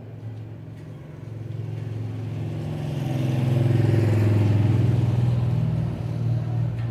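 A motor vehicle's engine passing close by, with a low, steady drone. It grows louder from about a second in, is loudest in the middle, then eases off slightly.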